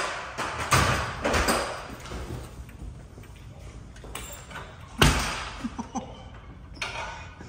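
Aluminium ladder clattering and clanking as it is handled and carried, with a run of knocks in the first second or so and one sharp ringing clank about five seconds in.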